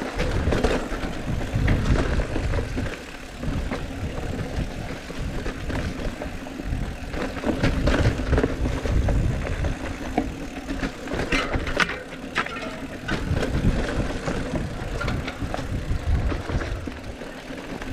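Mountain bike riding fast down a rough dirt singletrack: tyres rolling over the trail, with the bike and camera mount rattling and knocking over bumps and a steady low rumble of wind and ground noise.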